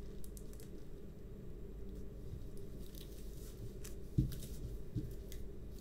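Hands smoothing and pressing a diamond-painting canvas flat, its thick plastic cover film faintly rustling and rubbing, with two soft thumps about four seconds in.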